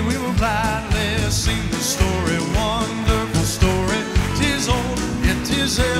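Live Southern gospel quartet music: a male lead singer with vibrato over a backing band with a steady beat of about two a second, the standing audience clapping along.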